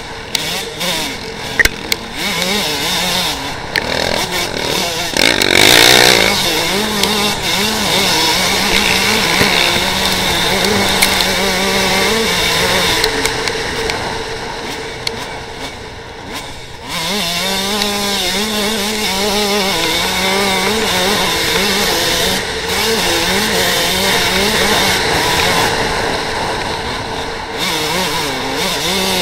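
KTM 125 two-stroke dirt bike engine under hard throttle while riding, its buzzing pitch rising and falling with the throttle. It is loudest about six seconds in, eases off briefly around sixteen seconds, then picks up sharply again.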